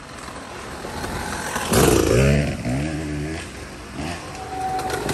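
Dirt bike passing close by: its engine grows louder as it approaches, is loudest a little under two seconds in, then climbs in pitch through several quick gear changes as it pulls away and fades.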